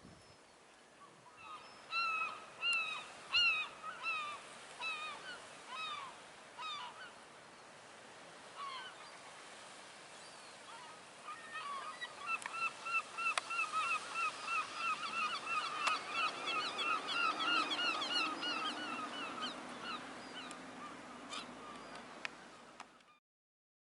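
Birds calling in repeated short, honking notes. A scattered run of calls comes in the first few seconds, then a long, fast series of about three or four calls a second follows in the second half.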